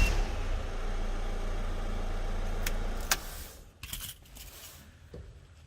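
Toyota PROACE van's engine, just started, running steadily for about three seconds and then stopping, with a couple of clicks as it stops. After that, keys jangling and a few light clicks. It starts because the alarm's immobiliser has been disarmed.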